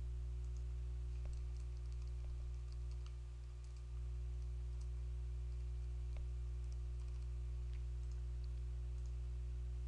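Faint, scattered clicks of computer keyboard keys being typed, over a steady low hum.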